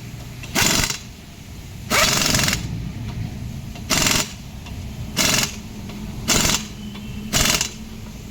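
A power tool runs in six short bursts, each under a second long, about a second apart, over a steady low hum, as a motorcycle wheel is worked on for a tyre change.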